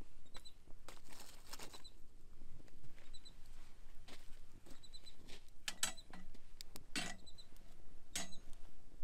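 Wood campfire crackling with scattered pops and knocks as sticks are laid on it, and footsteps on dirt, the loudest strokes coming about six, seven and eight seconds in. Faint high bird chirps come in short pairs.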